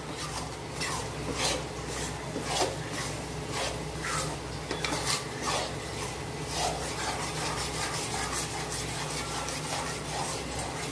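Metal spatula stirring and scraping roasting besan (gram flour) around an aluminium kadhai, in irregular strokes about one or two a second over a steady low hum. The flour is kept moving so it does not stick to the bottom and burn.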